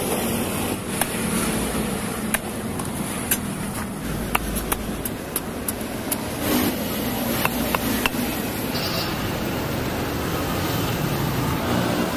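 Cleaver chopping coconut and sugar palm fruit on a wooden block: a scattered series of sharp knocks, over steady street traffic noise.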